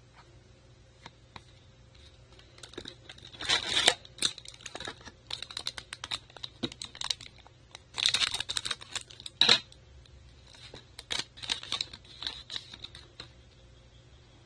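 Baseball trading cards being flicked and slid against each other in a series of small dry clicks and rustles, with louder crinkly rustles about four and eight seconds in, the one at eight from a foil card-pack wrapper being handled.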